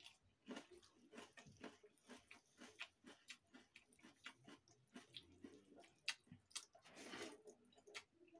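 Faint, wet chewing and mouth clicks of a person eating leftover rice (baasi bhaat) with raw onion by hand, with the soft squish of fingers mixing the rice in a steel plate.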